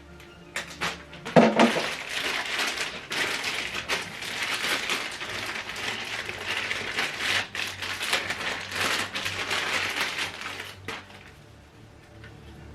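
Plastic packaging crinkling and crackling as it is handled and unwrapped, with a few sharp clicks; it starts about a second in and stops near the end.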